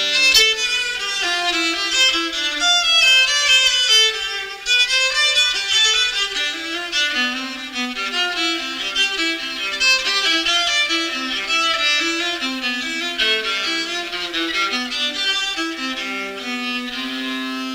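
Solo violin playing a flowing melody of quick, connected notes, settling on a long held note near the end.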